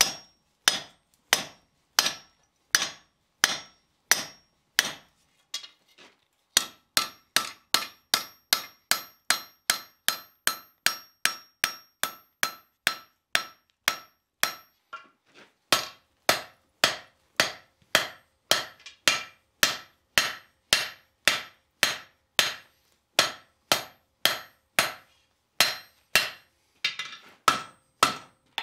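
Hand hammer striking a red-hot flat steel bar over a swedge block on a steel anvil, offsetting the end of the bar. The blows come in a steady run of about two a second, with short breaks about six and fifteen seconds in, and the anvil rings after each strike.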